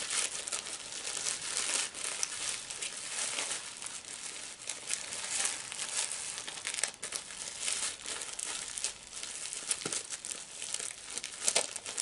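Crinkling plastic as a folded poncho is crammed back into its small packet: a dense, continuous run of rustles and crackles.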